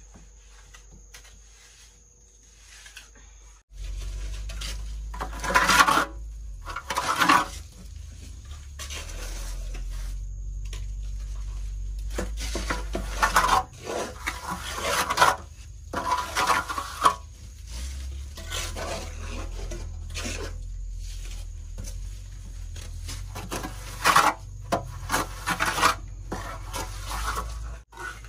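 Irregular scraping and rubbing strokes of something against a pot or pan, about one every one to two seconds, over a low steady rumble that starts about four seconds in.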